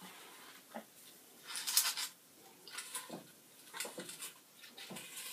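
Metal fork scraping and knocking against a Power Air Fryer XL basket as a steak is turned over: a handful of short, quiet scrapes and clicks, the loudest about two seconds in.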